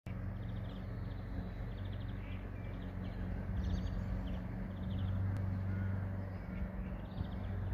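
Birds calling: short rattling notes repeated about once a second, over a steady low rumble.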